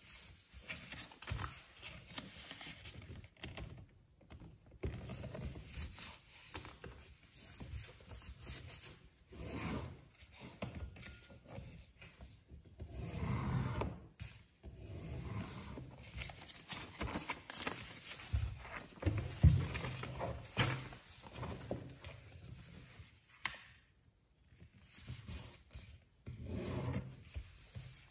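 A sheet of printed paper being folded by hand on a leather-covered folder: irregular rustling, sliding and rubbing as it is pressed flat and creased, with a louder soft thump about two thirds of the way through.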